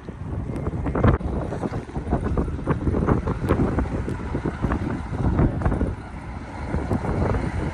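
Gusty wind buffeting the microphone in uneven rumbling surges, with a strong gust about a second in.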